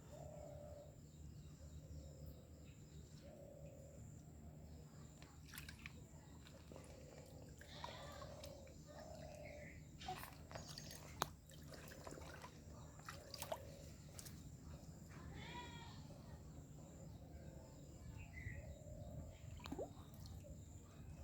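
Faint animal calls: a short mid-pitched note repeating every second or two, with a few longer calls in between, over a low steady hum and scattered clicks.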